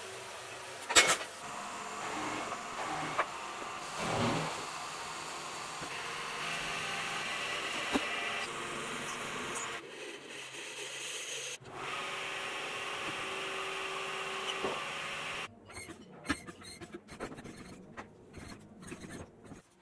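Metal-shop machining in quick succession: a horizontal bandsaw cutting through a round metal bar, then a metal lathe turning a bar as its tool peels off curling chips. Over the last few seconds it drops to a quieter run of light ticks and scrapes as a tool cuts inside the bore of a tube.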